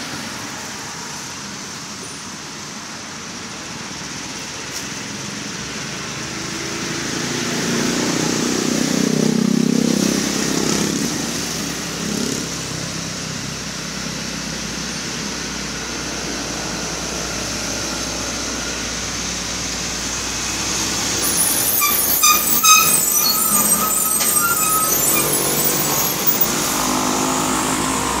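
Road traffic: motor vehicles passing on the road close by. One engine swells and fades about eight to twelve seconds in, and another louder stretch of traffic comes near the end, with a short run of high-pitched chirps.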